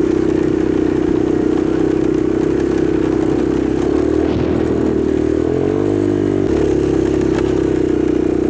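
A vehicle engine running at a steady speed, its pitch rising and falling back briefly about six seconds in.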